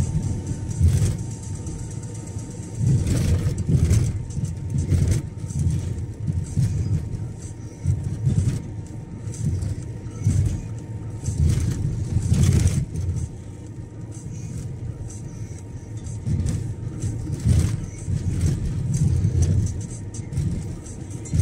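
A car driving along a road, heard from the car: a low rumble of engine and road noise that swells and fades every second or so, with occasional short knocks.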